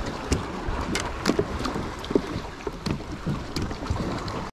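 Wind on the microphone and water against a kayak, with scattered small knocks and clicks at irregular moments.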